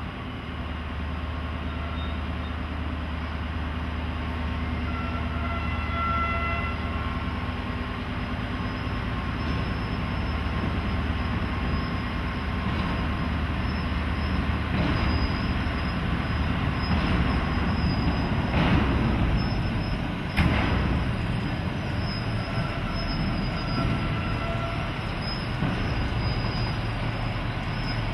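FS E.656 electric locomotive being moved slowly by a small 214 diesel shunter: steady low engine hum with wheels rumbling and squealing on the rails. Two sharp knocks about two-thirds of the way in, as the wheels cross rail joints.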